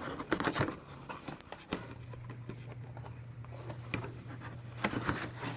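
Cardboard headphone packaging being handled: light rustles and small taps as the inner box is slid out of its sleeve, over a low steady hum.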